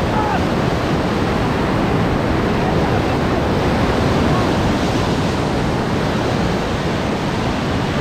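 Loud, steady rush of whitewater rapids churning around and under an inflatable raft, heard close up, with spray and wind buffeting the microphone.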